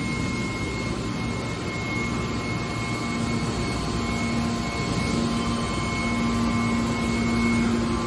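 Hydraulic aluminium-can baler's power unit running, a steady machine hum and whine. A low tone in it grows stronger about halfway through.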